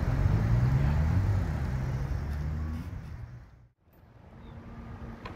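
Low steady rumble of a power wheelchair driving along a concrete sidewalk, with a faint motor hum. It fades almost to nothing just before four seconds in, then builds back up.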